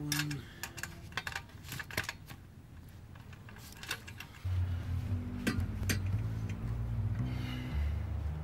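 Scattered metal clinks and taps of hand tools and fittings being handled, then background music with a low bass line comes in about halfway through.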